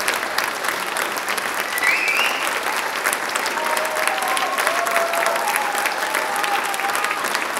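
Large theatre audience applauding steadily, a dense crackle of many hands clapping.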